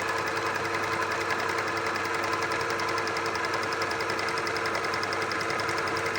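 Wertheim electric sewing machine running steadily at speed as it sews a stitch pattern: an even motor hum with a fast, regular needle chatter, no change in pace.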